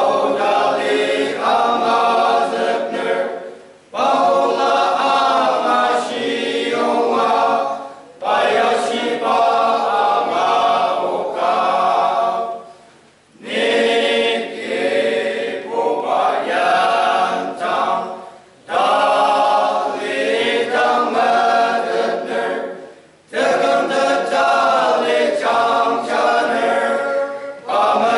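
Male voice choir singing a hymn a cappella, in phrases of about four to five seconds with short breaks for breath between them.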